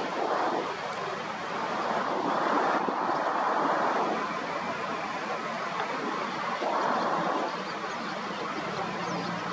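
Sea surf washing on a beach: a steady rush of noise that swells twice, about two seconds in and again about seven seconds in. A few faint high chirps come near the end.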